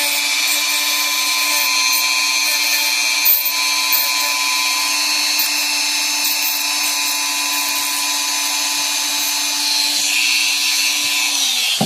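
Dremel rotary tool running at a steady high whine as it grinds down the tip of a steel paper-clip pin fitted as a typewriter ribbon spool drive stud. It switches off near the end and winds down.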